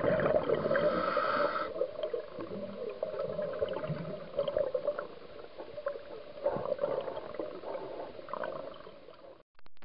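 Scuba diver's regulator exhaust bubbles gurgling underwater: a loud burst of bubbling in the first couple of seconds, then quieter irregular gurgles and small clicks. The sound cuts off briefly just before the end.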